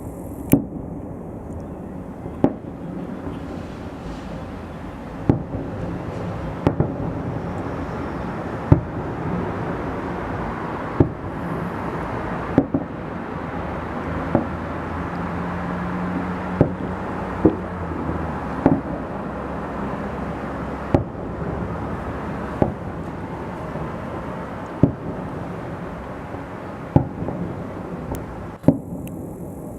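Fireworks shells bursting in a salute display: sharp bangs every second or two, over a steady background of outdoor noise.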